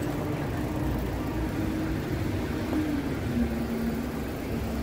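Low, steady rumble of a motor vehicle and street traffic, with a faint engine hum that steps down in pitch about three and a half seconds in.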